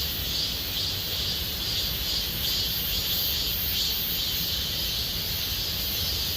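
A chorus of cicadas buzzing steadily in high, shrill tones that swell and fade a couple of times a second, over a low rumble.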